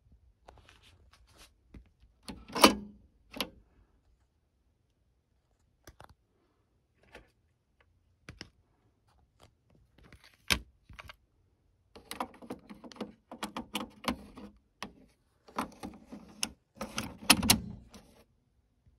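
Mechanical clicks and a loud clunk from a Realistic SCT-11 cassette deck's eject mechanism as its cassette door is opened, then a plastic cassette rattling and clicking while it is handled and fitted into the door in the last few seconds.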